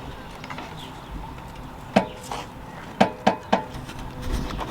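Metal hand tool clinking and tapping against a car door's inner panel and clips while prying. There are a handful of sharp metallic clicks with a brief ring, most of them in the second half.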